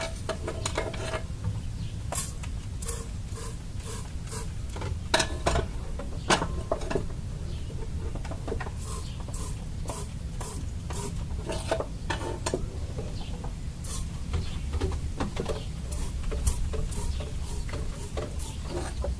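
Irregular metallic clinks and clicks of tools and parts being handled, over a steady low hum. No engine is running or cranking.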